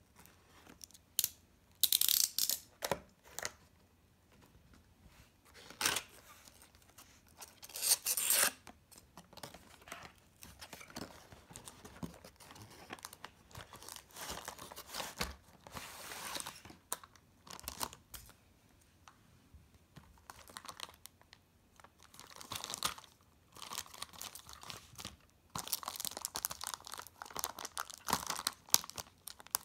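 Cardboard toy-train box being opened by hand: the seal tape sliced and torn in sharp bursts, the cardboard flaps pulled open and rustled, and near the end the clear plastic bag around the train crinkling.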